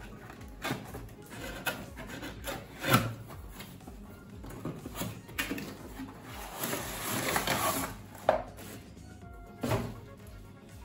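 Cardboard box being opened and handled: several knocks of the box against a tabletop, and a longer stretch of scraping and rustling as the plastic-wrapped kadai and glass lid are slid out of it.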